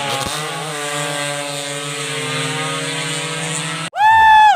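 Racing motorcycle engine held at high revs, a steady note sagging slightly in pitch. About four seconds in the sound breaks off abruptly and a much louder, higher-pitched engine scream takes over.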